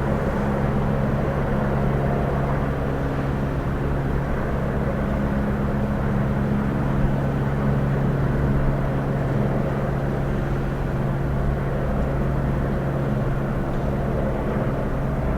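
Police helicopter hovering, a steady drone of rotor and engine with low humming tones that hold one pitch throughout.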